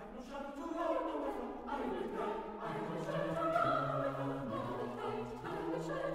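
A choir singing sustained chords in several parts, with a low voice line joining about three seconds in.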